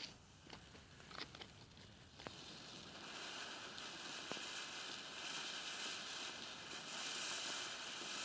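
'Zauberwürfel' ground firework fountain: the burning fuse gives a few sharp clicks, then about two and a half seconds in the fountain ignites into a steady hiss of spraying sparks.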